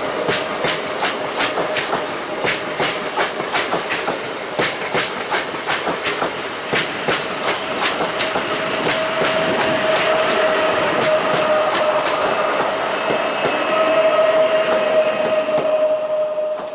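PKP Intercity ED161 Dart electric multiple unit pulling out of the station, its wheels clicking over rail joints a few times a second under a steady whine. The clicks thin out in the second half.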